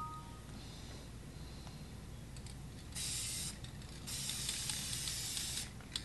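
Aerosol spray-paint can spraying in two bursts of hiss: a short one about three seconds in, then a longer one of about a second and a half.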